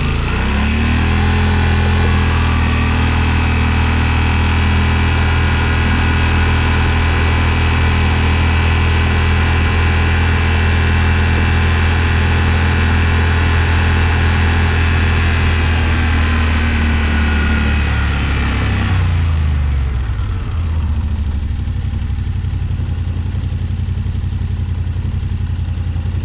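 Yamaha Wolverine X4's 847 cc parallel-twin engine running freshly rebuilt after flood damage: it picks up speed just after the start, holds a steady higher speed, then drops back to a steady idle about 19 seconds in.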